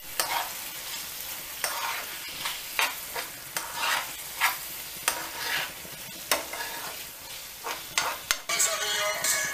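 Saltfish, okra and chopped vegetables sizzling in a nonstick frying pan as they are stirred, with a scrape of the utensil against the pan about every half second to a second.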